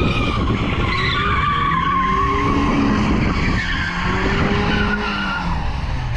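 A car being driven sideways: tyres squealing in long wavering tones while the engine revs rise and fall.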